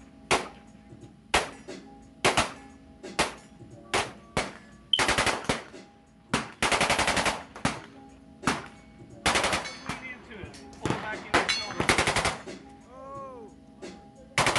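Gunfire from a 7.62×39 short-barrelled pistol: single shots about a second apart for the first few seconds, then several fast strings of rapid shots in the middle.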